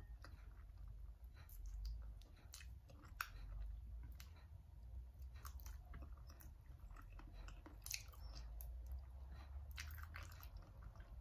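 Close-up chewing on chicken feet cooked in coconut milk, with scattered small clicks and crunches from the bony feet.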